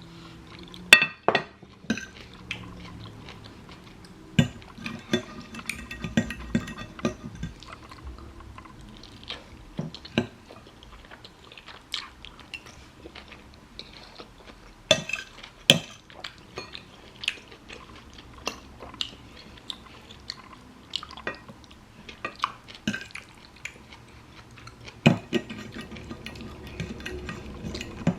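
Close-up eating of jjajangmyeon (Korean black bean noodles): chewing, with irregular sharp clicks and clinks of utensils against the dish.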